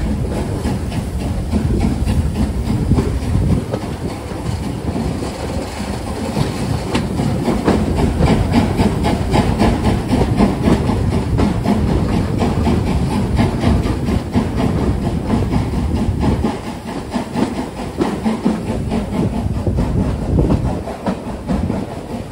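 Steam-hauled passenger train running along, heard from an open carriage window: wheels clattering over the rails under a steady rush of noise, with the hiss of the locomotive's steam.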